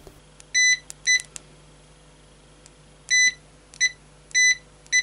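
Venlab VC-600D clamp meter's continuity buzzer beeping each time the test probe tips touch, a sign of a closed circuit between the leads. About six high beeps come in irregular short bursts of differing length.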